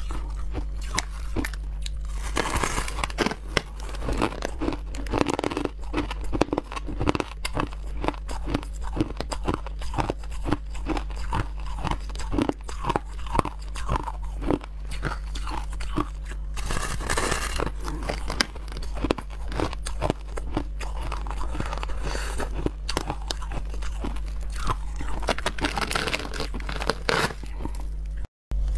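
Biting into and chewing a block of compacted shaved ice: dense, repeated crisp crunches over a steady low hum. The sound drops out briefly near the end.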